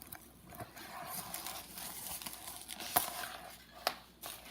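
A bag rustling and crinkling as it is opened and rummaged through to take out an item, with a few sharp clicks, the loudest about three seconds in.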